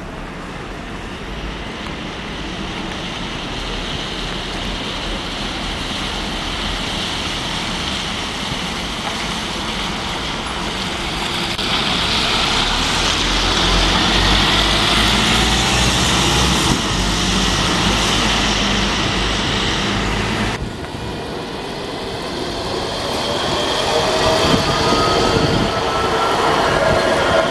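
Double-decker city buses pulling away and passing close, their engines humming low and swelling to a peak about halfway through. After a sudden cut, an electric tram moving through with a rising motor whine that grows louder near the end.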